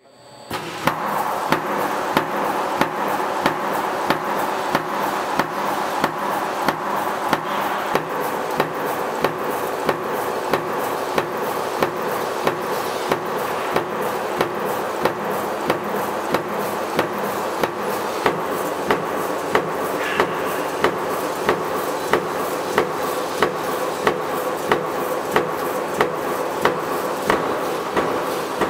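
Mechanical power press punching razor-blade tape from steel strip: evenly spaced sharp punching strokes, about one and a half a second, over a steady machine hum. It fades in at the very start.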